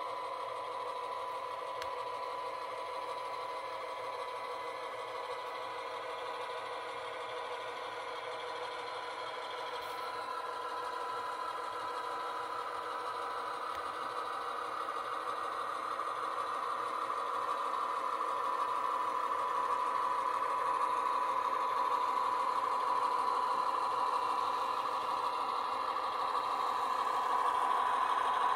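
HO scale model train running slowly: a CSX diesel locomotive pulling gondolas of scrap, giving a steady engine-like hum with a high steady whine. It grows louder in the second half as the locomotive draws near.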